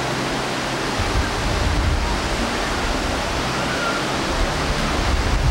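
Steady rushing outdoor noise of wind and breaking surf, heard from high above the beach on a camcorder's built-in microphone, with a fluctuating low rumble.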